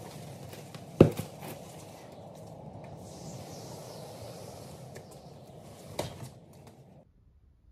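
Knocks and handling noise as a large plastic plant pot is carried in and set down on a tile floor: one sharp knock about a second in, a smaller one near the end, over a steady low rustle that stops abruptly.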